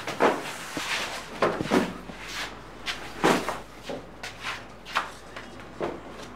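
Scuffling: irregular knocks and bumps at uneven intervals as men handle a bound, gagged man in a chair, over a low hum that starts about a second in.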